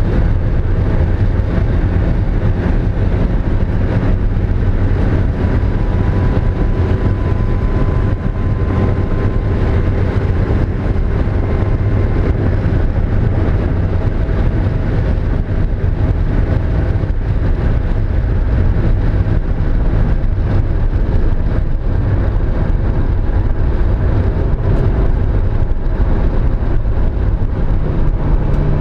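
Mazda Miata's four-cylinder engine running steadily at speed on track, with wind and road noise; this engine has a misfire on cylinder 2.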